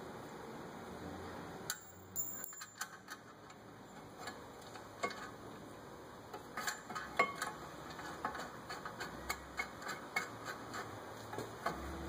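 Light metallic clicks and clinks of a car's rear brake caliper being handled and fitted over the brake pads and rotor. They start about two seconds in and come thickest in the second half.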